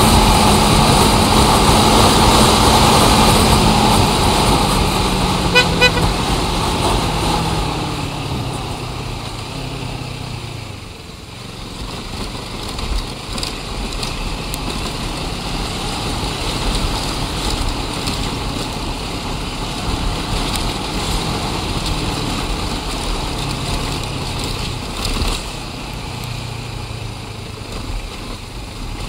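Road traffic. A vehicle engine runs loudly, its pitch falling as it slows and fades over the first ten seconds. Two quick horn toots sound about six seconds in, and steadier traffic noise with other engines follows.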